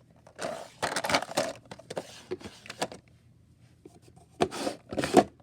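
Rustling and handling noises of things being moved about in a search, in two stretches with a pause of about a second and a half between them.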